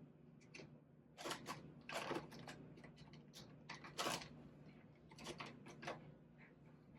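Faint, scattered rustles and light taps of paper cardstock being handled on a craft table, the loudest about four seconds in.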